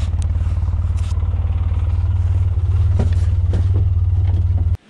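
Vehicle engine running steadily with a low, pulsing rumble, then stopping abruptly near the end.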